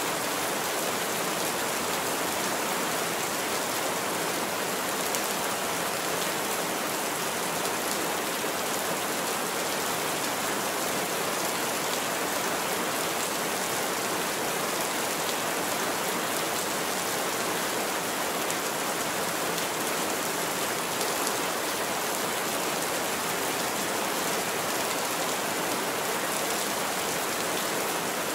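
Heavy rain falling steadily, an even hiss with no thunder or separate gusts standing out.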